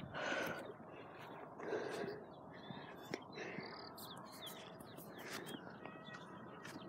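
A person breathing hard, two heavy breaths near the start and about two seconds in, with clicks from a phone being handled and faint bird chirps.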